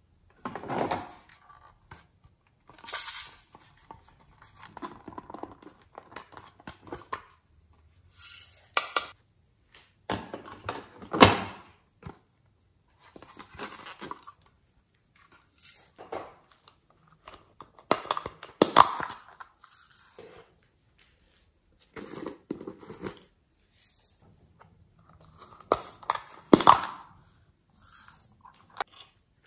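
Small plastic toy cases being handled, snapped and tapped as glitter and sequins are shaken out of them into a dish of white glue: a series of separate short rustling, clattering bursts, with a few sharp plastic clicks.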